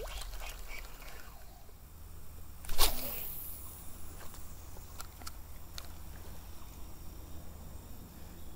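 A 7-foot spinning rod swished through the air in a single cast just under three seconds in, followed by a few faint ticks as the retrieve starts.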